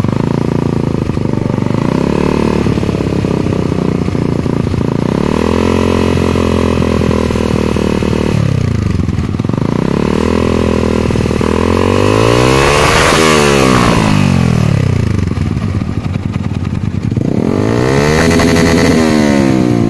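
Yamaha R15 single-cylinder engine through a Sakura AR09 aftermarket racing muffler, revved up and let fall back several times, its pitch climbing highest about two-thirds of the way through. The exhaust note is soft and not harsh for a racing pipe.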